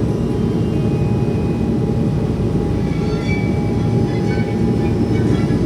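A vehicle's engine running with a steady low rumble and a faint steady hum above it.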